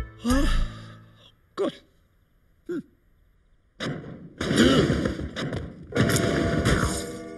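Cartoon sound effects: three short hums in the first few seconds, then from about four seconds a loud, rapid rattling and juddering from a roped-together armchair, standing lamp and grandfather clock shaking violently.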